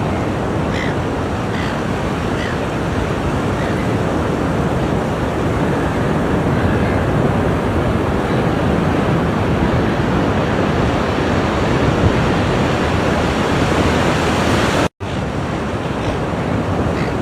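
Ocean surf breaking on the shore: a steady, even rush of waves. It cuts out to silence for a split second near the end, then resumes.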